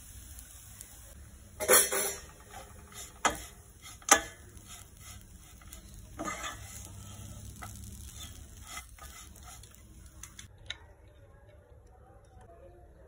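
Wooden spatula stirring poha (flattened rice) in a nonstick pan, scraping and knocking against the pan, with the loudest knocks about two, three and four seconds in. The stirring stops about ten seconds in.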